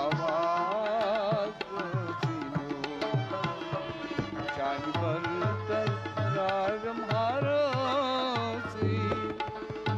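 Kashmiri Sufi song accompaniment with tabla: repeated deep bass-drum strokes that bend in pitch. Over them runs a melodic line with quick wavering ornaments.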